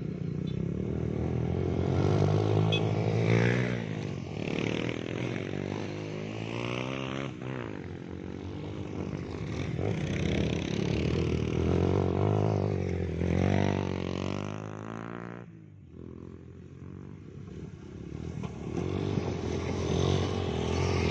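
Off-road dirt bikes riding past one after another over loose gravel, their engines revving up and easing off as each bike approaches and goes by. The engines drop to a lull about three quarters through, then a bike rises loud again as it passes close near the end.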